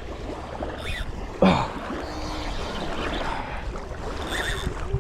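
Steady rush of river water and wind noise, with one sudden loud sound about one and a half seconds in.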